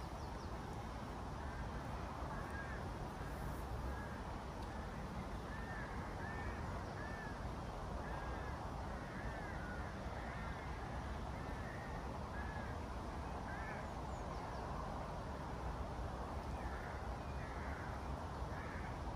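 A bird calling repeatedly, many short arched chirps, over a steady low outdoor rumble.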